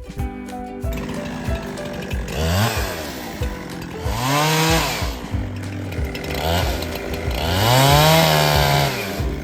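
Chainsaw revving up and falling back several times, with the two longest revs the loudest, over background music.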